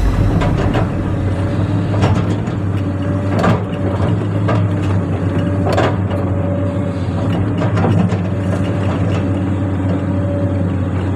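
Excavator diesel engine running steadily, with irregular sharp knocks and scrapes from the bucket working.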